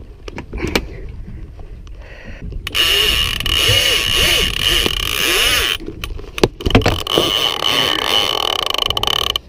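Heavy conventional fishing reel's drag screaming as a hooked bull shark runs and strips line off the spool. There are two long runs: the first starts about three seconds in and lasts about three seconds, the second starts about a second later and carries on. Before the first run there are a few knocks.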